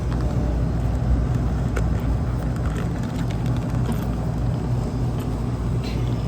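Steady low mechanical hum of a running motor or engine, holding level, with a few faint clicks.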